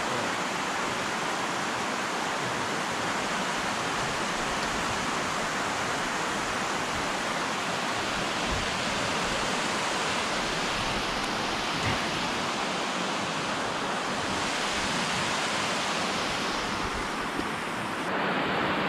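Water pouring steadily over a low concrete weir, a constant rushing noise.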